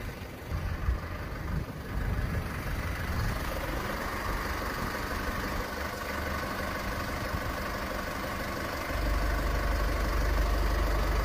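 Chevrolet Colorado ZR2 Bison's Duramax diesel engine idling steadily, its low rumble growing louder about nine seconds in.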